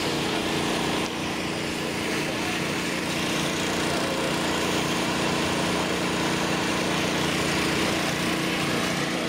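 Small gasoline engine of a portable water pump running steadily at a constant speed while pumping out muddy water from a burst water main.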